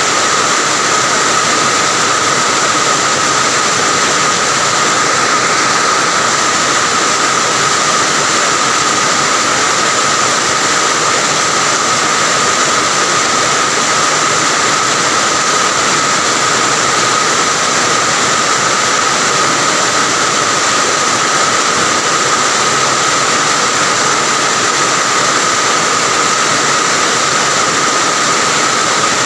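Steady heavy rain falling, an even hiss with a faint high steady tone running through it.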